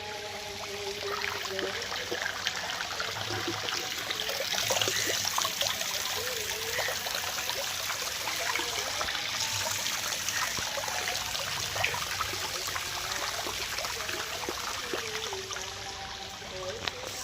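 Water splashing and trickling in shallow water, with many short, irregular splashes as people wade and work by hand.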